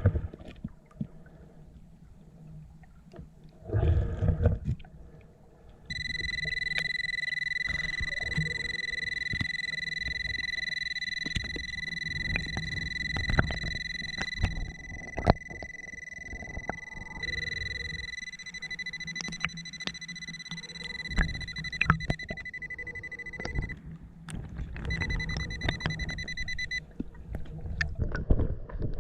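Pulse Dive underwater metal detector sounding a steady high beep tone over a metal target, held for several seconds, breaking off, then sounding again twice, the last time briefly. Low underwater rumble and scattered clicks run beneath, with a short loud rumbling burst about four seconds in.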